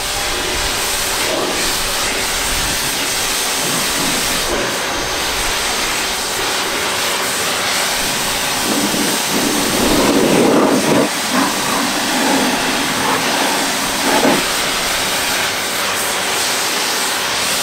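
Pressure washer spray from a 25-degree nozzle tip, a loud steady hiss of the water jet striking the trailer's metal side as it rinses off foam. The spattering gets louder about ten seconds in, and the spray cuts off right at the end when the trigger is released.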